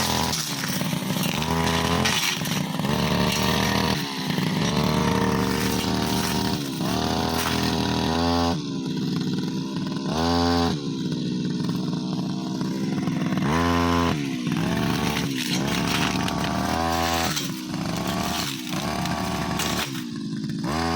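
Brushcutter engine with a metal blade, throttled up and down over and over while cutting long grass and saplings: its pitch climbs to a high whine and falls back to a lower run every couple of seconds.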